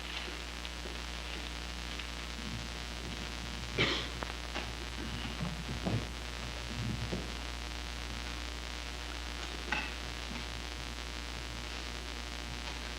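Steady mains hum and hiss from an old VHS tape recording, with a few brief faint knocks and rustles scattered through it.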